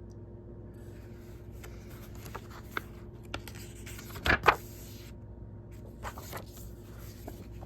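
A Blu-ray set and its paper booklet being handled: rustling and scraping, with scattered light clicks and two sharp clicks in quick succession a little past halfway.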